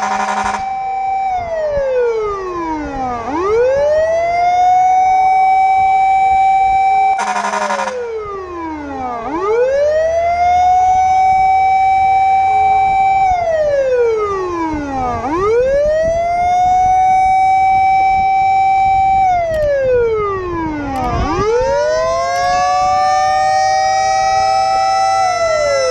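Fire truck's siren wailing over and over, about every six seconds: each cycle rises quickly, holds a high tone for a few seconds, then slides down. A short horn blast ends just as the sound begins, and another sounds for about a second, about seven seconds in.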